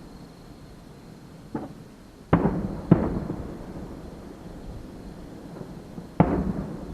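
Fireworks shells bursting overhead: a faint bang about a second and a half in, two loud bangs about half a second apart just past two seconds, and another loud bang near the end, each trailing off in a rolling rumble.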